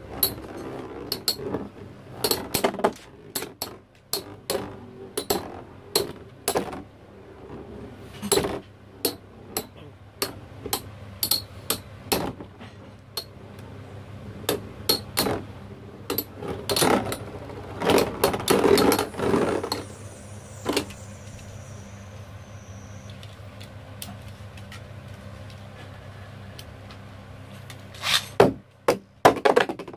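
Toy battle spinning tops clashing in an arena: repeated sharp clacks and knocks over a steady spinning hum. The clashes die away about two-thirds of the way through, leaving only the hum, and a burst of hard clacks returns near the end.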